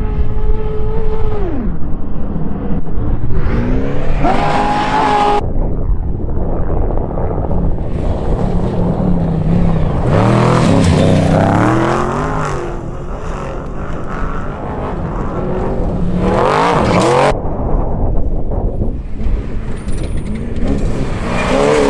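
Off-road race vehicle engines revving hard, their pitch climbing under throttle and dropping away as they pass. The sound cuts off abruptly several times between short clips.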